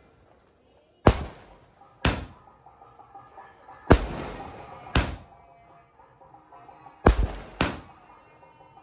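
A 30-shot fireworks cake firing its aerial shells: six sharp bangs, about one to two seconds apart, each dying away quickly. The last two come in quick succession near the end.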